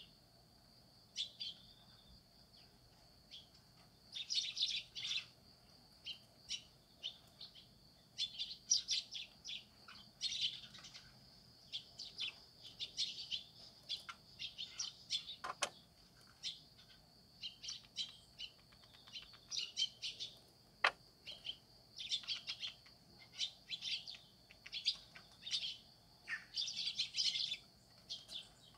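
Small birds chirping in frequent short bursts, over a faint steady high-pitched tone. Two sharp clicks stand out, about halfway through and again a few seconds later.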